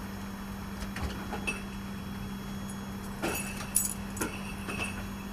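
A patio door opening and the metal frame of a folding camp chair clattering as it is carried out: light clicks, then a cluster of sharp metallic rattles from about three seconds in, over a steady hum.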